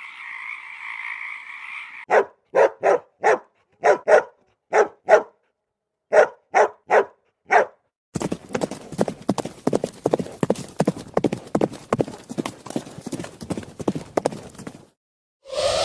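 Horse hooves clip-clopping: slow single strikes, many in pairs, for a few seconds, then a fast, dense run of hoofbeats from about eight seconds in. Frog croaking carries over from the previous sound for the first two seconds.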